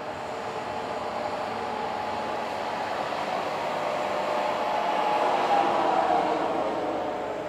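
A Saab JAS 39 Gripen C's single Volvo RM12 turbofan as the fighter touches down and rolls out on the runway: steady jet noise with a whine in it, growing louder toward a peak about six seconds in and starting to fade near the end.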